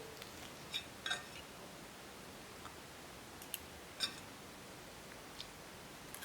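A few light, sharp clicks and taps of small objects being handled, spaced irregularly over a quiet room.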